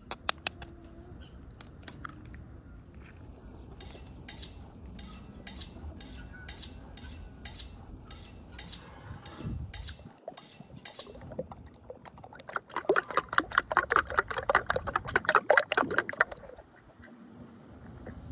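Fork beating raw eggs in a ceramic bowl: a rapid run of clinking strokes for a few seconds past the middle, the loudest sound here. Before it, a series of sharp ticks about twice a second.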